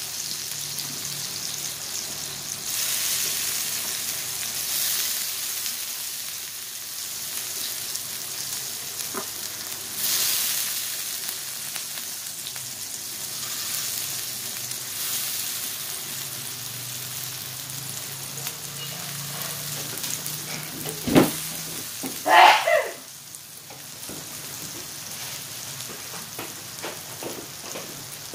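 Food sizzling and crackling in oil on an electric grill plate, a steady frying hiss. About three-quarters of the way in there is a sharp knock, then a louder brief sound that falls in pitch.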